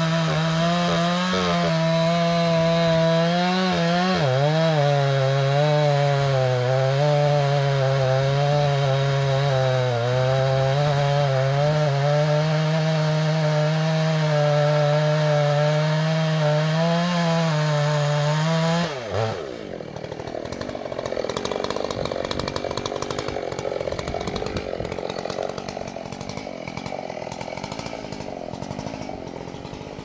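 Two-stroke chainsaw running at full throttle as it cuts into a casuarina trunk, its pitch dipping and recovering as the chain bites. About two-thirds of the way through, the engine note falls away sharply and a softer rushing, rustling noise carries on.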